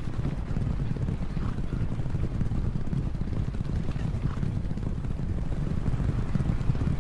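A field of racehorses galloping: a steady, dense mass of overlapping hoofbeats with no single strike standing out.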